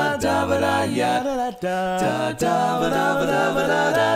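Four-part TTBB barbershop quartet singing a cappella: men's voices holding close-harmony chords that change several times, with short breaks between phrases.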